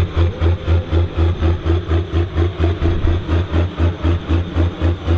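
New Holland 8970's six-cylinder diesel engine running at idle, a heavy, even throb of about four to five pulses a second.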